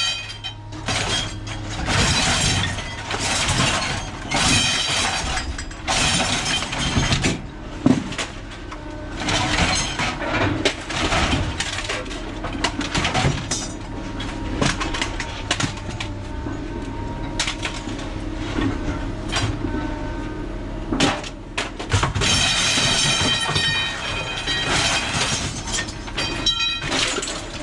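Scrap steel being thrown piece after piece onto a metal scrap pile, with repeated clanging crashes and ringing metal, over a steady low hum.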